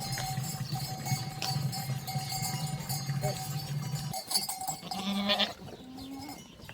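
Sheep and goats with bells clinking, and a bleat about five seconds in.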